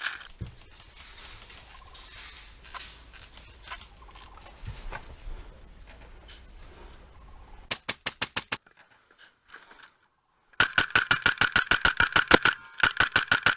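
Bursts of full-auto airsoft gun fire, each a rapid even string of sharp clicks. A short burst comes a little past halfway; then, after a sudden brief drop-out, two longer bursts follow near the end with a short pause between them. Before the firing there is only a low steady rumble with scattered faint clicks.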